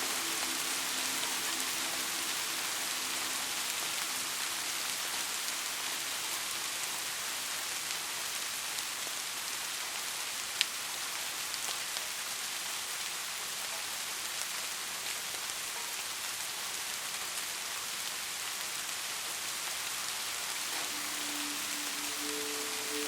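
Steady rain falling on a porch roof and surfaces, an even hiss, with one sharp drip or tap about ten and a half seconds in.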